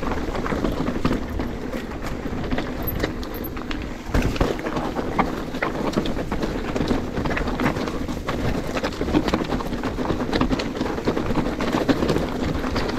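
Mountain bike rolling over a rough trail: a steady rumble of tyres on dirt and stones, with many small clicks and rattles from the bike throughout.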